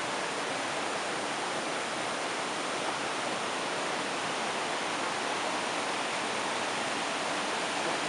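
A rocky mountain stream rushing steadily, an even hiss of water.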